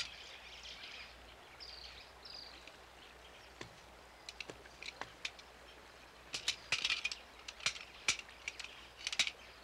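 Quiet forest ambience with scattered short, high bird chirps and sharp ticks over a faint hiss. The ticks come in small clusters about six and a half seconds in and again near the end.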